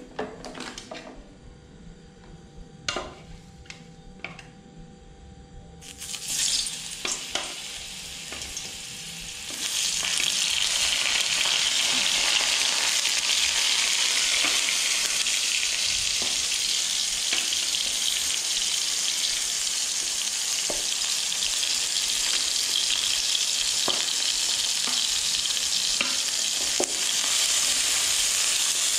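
Food frying in hot oil in a wok, with a few sharp knocks at first. The sizzle starts about six seconds in and turns loud and steady about ten seconds in, with an occasional click of a utensil against the pan.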